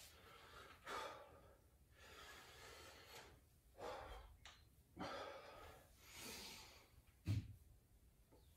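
Faint heavy breathing of a man exercising, soft exhales roughly once a second during squat-to-reach reps, with one short louder burst near the end.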